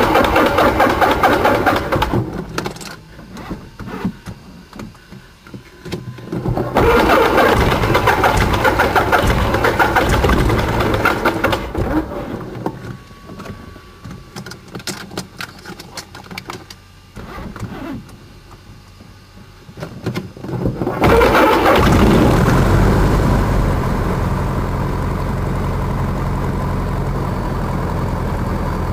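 Cessna 150's Continental O-200 four-cylinder aircraft engine being started. The propeller turns over in a burst that stops about two seconds in, and again in a burst from about seven to twelve seconds. About twenty-one seconds in the engine catches and settles into a steady idle.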